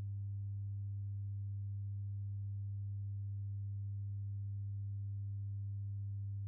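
A steady low-pitched hum, one unchanging tone with faint overtones above it.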